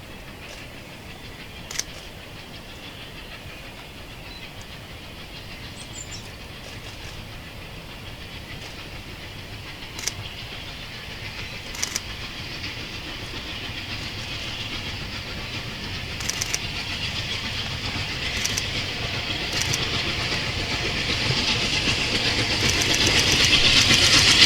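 A steam-hauled train approaching along the line, its sound building steadily and loudest near the end, with a few sharp clicks along the way.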